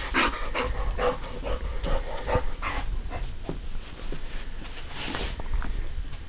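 American pit bull terrier making dog sounds: a run of short, breathy bursts, about two or three a second.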